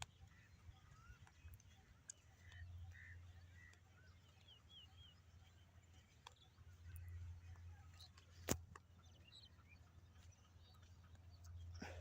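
Faint bird chirps and short calls, scattered throughout, over a low rumble that swells and fades a few times. A single sharp click comes about eight and a half seconds in.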